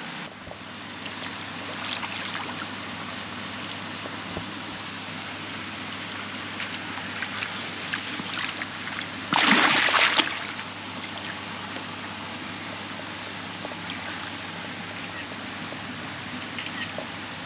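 Water splashing and trickling, with one loud splash lasting about a second near the middle.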